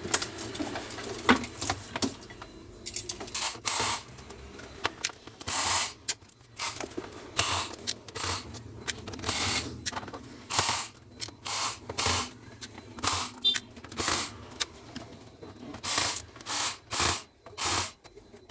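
Screwdriver backing out the screws of a laptop's plastic bottom case: a long run of short, sharp bursts, one or two a second.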